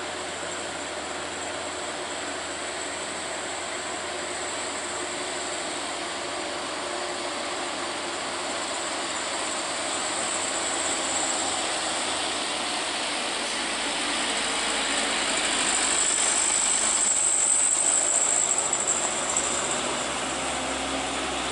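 Light diesel trucks climbing a steep mountain hairpin, a steady mechanical engine and road noise that grows louder in the second half.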